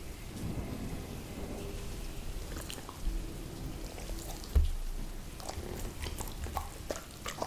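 Steady rain with thunder: a low rumble about three seconds in and a louder clap about a second and a half later. Scattered small clicks and smacks through it, a dog eating food set down for it.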